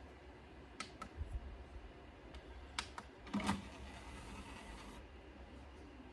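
A few light clicks and knocks in the first half, five or so, over a faint low hum.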